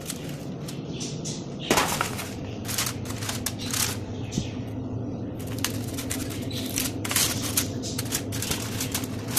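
Crumpled aluminium foil crinkling and rustling in irregular crackles as it is pulled open over a baking tray, with a single knock a couple of seconds in.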